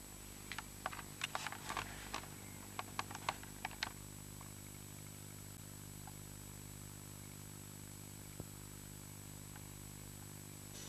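A quick, irregular run of about a dozen small clicks and taps in the first four seconds, with one more tap later, over a steady low electrical hum.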